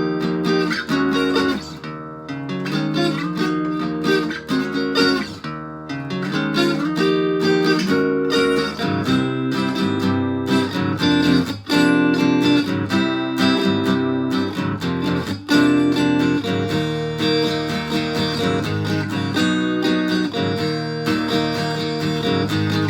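Acoustic guitar fitted with a Bartolini 3AV pickup, played through a BOSS DS-1 distortion pedal into an amplifier, strumming and picking chords in lower tuning for a lightly driven, amplified acoustic tone.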